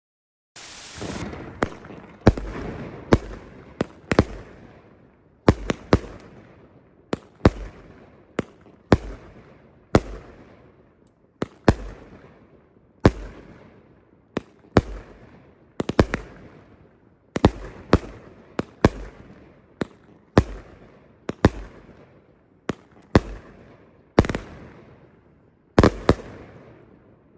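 Pyro Demon "King Cobra" firework cake firing its shots one after another, about one a second: each a sharp report with a low thump, followed by a fading crackle, after a brief hiss at the start.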